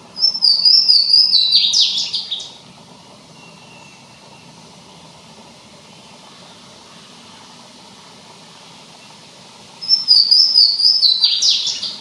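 Louisiana waterthrush singing twice, about ten seconds apart: each song is a few clear high notes stepping down in pitch, then a quick jumble of falling notes, lasting about two seconds. A faint steady outdoor hiss fills the gap between the songs.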